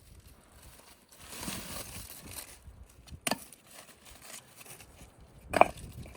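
Rustling, then two sharp knocks about two seconds apart, the second the louder.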